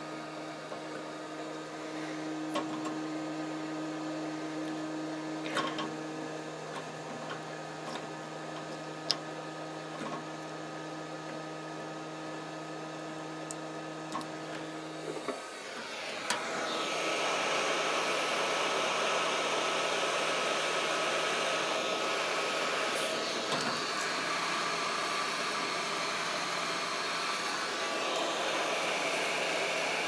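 Low steady hum with a few light clicks as wires are handled. Then, about halfway through, a heat gun switches on and blows steadily with a loud rushing hiss, shrinking heat-shrink tubing over a crimped wire terminal.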